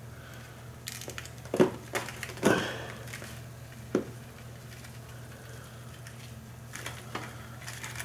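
Handling noise of packing paper and a plastic tub as a bromeliad is unwrapped and set into sphagnum moss: a few short crinkles and light knocks, the loudest about a second and a half and two and a half seconds in. A low steady hum runs underneath.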